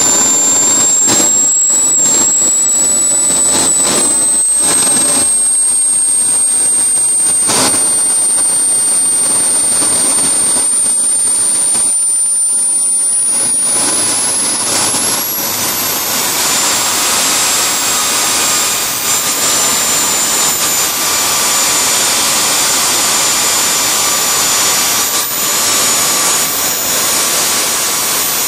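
Small turbojet engine running with a steady roar and a high turbine whine. The whine creeps up slowly, then climbs sharply in pitch about 14 seconds in as the turbine spools up, and holds high. A few brief crackles come in the first several seconds.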